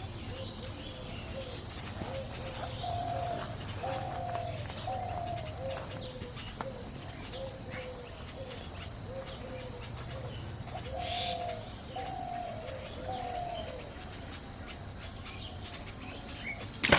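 Birds calling outdoors: a dove cooing over and over in short falling notes, about one a second, with small birds chirping now and then. A sharp knock comes right at the end.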